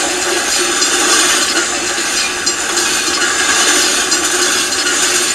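Freight cars of a long train passing at about 60 mph: a loud, steady clatter and rattle of steel wheels on the rails and of the cars themselves.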